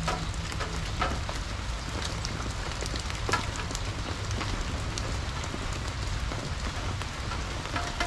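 Steady rain falling, with scattered individual drops ticking sharply over the patter and a low steady rumble beneath.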